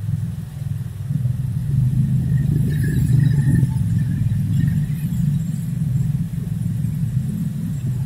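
Low, steady rumble of road traffic, cars and motorcycles passing on a rain-wet street.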